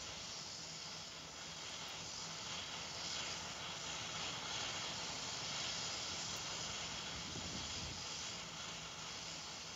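Steady rushing hiss with no distinct events, swelling slightly a few seconds in and easing near the end.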